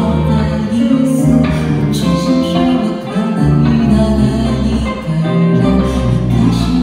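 A woman singing live into a microphone, accompanied by an electric guitar.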